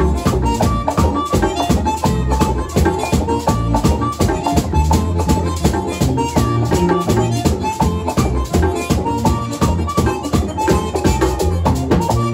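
Live merengue típico played on a button accordion, a two-headed tambora drum and a scraped metal güira: the accordion runs a melody over a fast, steady beat of drum strokes and scraping.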